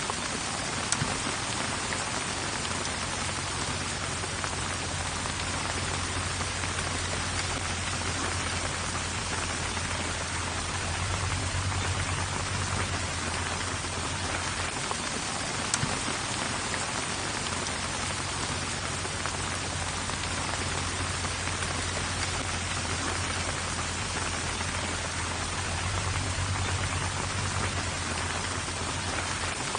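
Steady rain falling in a dense hiss, with a few sharper drop ticks. Under it runs a low rumble that swells twice and drops out briefly about halfway through.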